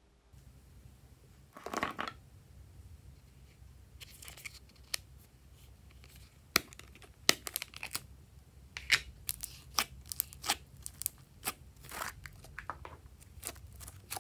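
Small plastic slime tub being opened and pink slime handled by hand: a short rustle about two seconds in, then a run of sharp clicks and crackles that grows busier toward the end.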